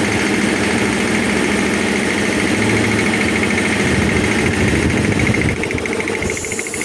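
10 HP electric air compressor running smoothly with no knocking, now that its check valve washer has been replaced. Near the end the motor cuts out at the pressure switch and a hiss of released air starts.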